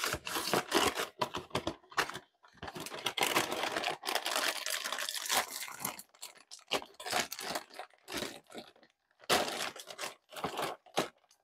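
A cardboard cereal box being opened, then the plastic liner bag inside pulled open: irregular tearing and crinkling in bursts with short pauses.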